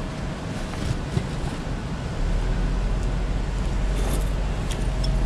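A few light clicks and knocks from a folding bicycle being unfolded and assembled, over a low outdoor rumble of traffic that grows louder about two seconds in.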